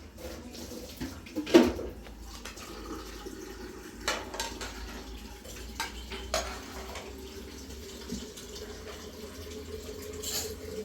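Pots and dishes knocking and clinking a few times, the loudest knock about a second and a half in.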